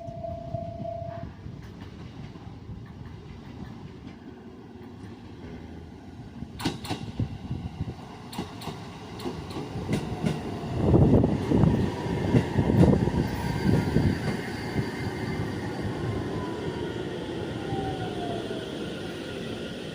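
Electric train arriving at a station. Its wheels clack over the rail joints, loudest as it comes past about 11 to 14 seconds in. A falling motor whine follows as it slows toward a stop.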